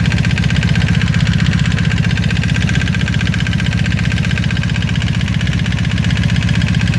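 1995 Honda Magna V4 motorcycle engine idling steadily with an even, rapid pulse and the knock it is filmed for, which the owner puts down to either the cam chain tensioner or valve noise.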